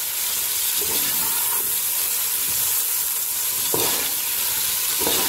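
Sliced onions sizzling in hot oil in a metal pot, stirred with a metal spoon that scrapes across the pot a few times as they start to brown.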